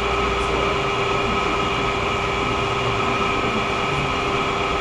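Steady mechanical hum of a room air conditioner: an even rushing noise with a few constant tones, unchanging throughout.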